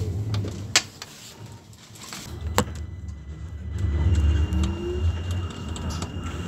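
Class 399 tram-train heard from its driver's cab as it runs along the track: a low rumble of wheels and drive that drops away about a second in and builds again about four seconds in, with two sharp clicks a couple of seconds apart.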